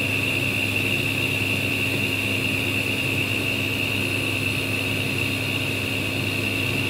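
Steady hum of a running fan, with a high, even whine held throughout.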